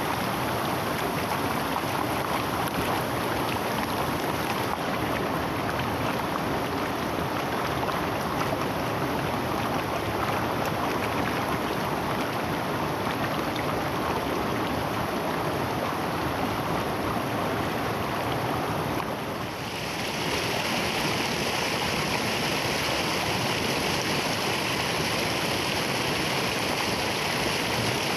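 Waterfall rushing steadily. About two-thirds of the way through it dips for a moment and comes back brighter and hissier.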